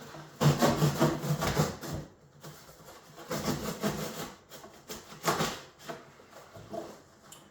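Packing material rubbing and scraping as a crated machine is unpacked, in three spells: a long one starting about half a second in, another about three seconds in, and a short one a little after five seconds.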